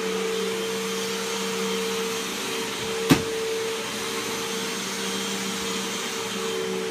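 Vacuum cleaner motor running steadily with a constant hum, and a single sharp knock about three seconds in.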